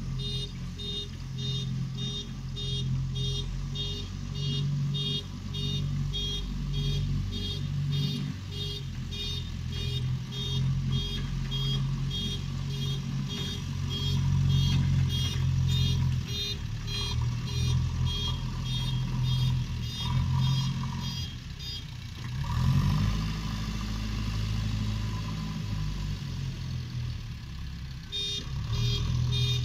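JCB backhoe loader's diesel engine running, with its reversing alarm beeping about twice a second, the sign that the machine is backing up. The beeping stops about 21 seconds in as the engine note rises, then starts again near the end.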